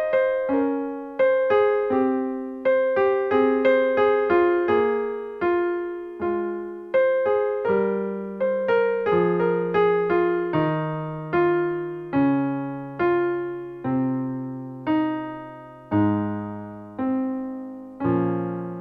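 Solo piano music: notes struck one after another, each fading away, quickening at first and then slowing, with the bass line stepping downward.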